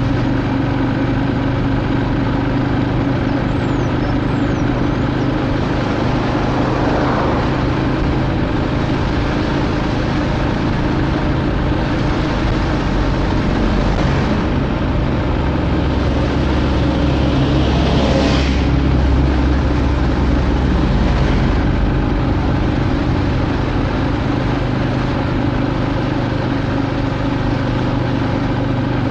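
A vehicle engine running steadily while moving slowly along the road, with a deeper, louder rumble around 16 to 21 seconds in.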